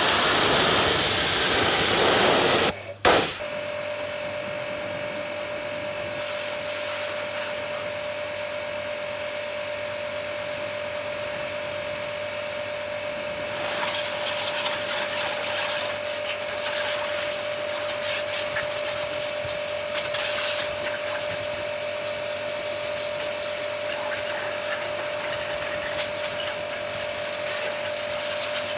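Motorcycle being washed: water sprays hard for the first few seconds and cuts off abruptly, then a steady machine hum runs under a hiss, with irregular scrubbing and rubbing noises from about halfway on.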